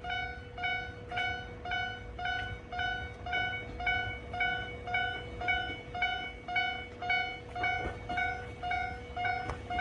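Japanese railway level-crossing warning bell ringing in a steady, even rhythm of a little over two strikes a second, warning of an approaching train.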